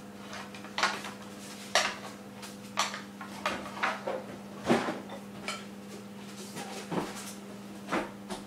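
A spoon knocking and scraping against a mixing bowl as cookie dough is stirred, in irregular clinks about once a second, over a steady low hum.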